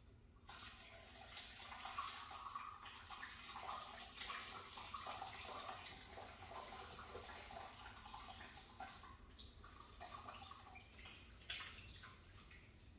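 Water splashing and trickling into a kitchen sink as the soaking water is drained off sliced onions. It starts about half a second in and stops near the end.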